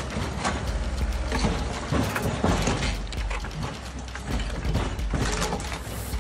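Galion Roll-O-Matic road roller's engine running with a steady low rumble while its steel drum rolls over motorcycle exhaust pipes, crushing them with irregular metallic clanks and crunches.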